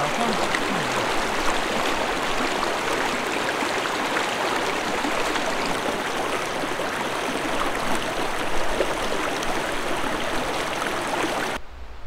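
Creek water rushing steadily over its bed, a constant wash of running water; it cuts off suddenly just before the end.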